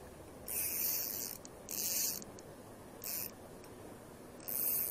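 Ryobi Ultra Power 800 spinning reel cranked in short spurts, the 0.8 PE braided line rubbing and hissing as it winds on. Four short bursts of scratchy hiss, with pauses between them.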